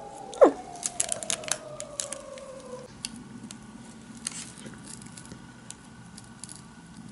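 Parchment paper crinkling with scattered small clicks as cookies are decorated with a chocolate pen. A quick, loud falling whistle-like sweep comes about half a second in, and a steady tone slowly falls in pitch until it stops about three seconds in.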